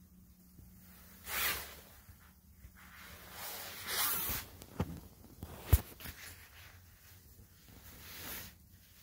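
Rustling, brushing handling noise as a person moves about: three swishes, the first about a second in, and a sharp knock just before the six-second mark that is the loudest sound.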